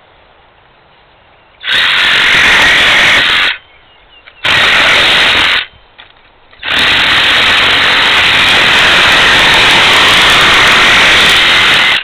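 Cordless reciprocating saw cutting into a metal bucket, running in three goes: a short burst about two seconds in, another of about a second near the middle, then a long steady cut of about five seconds.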